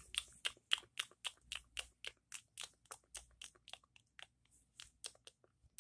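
Computer keyboard being typed on: a quick, slightly irregular run of faint clicks, about four or five a second.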